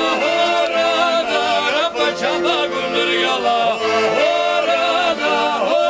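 Piano accordion playing chords under a man's singing voice, which holds long, wavering notes.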